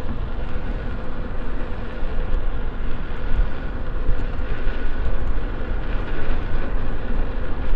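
Loud wind rushing over the microphone with road noise, riding an electric unicycle at speed, and a thin steady whine running under it.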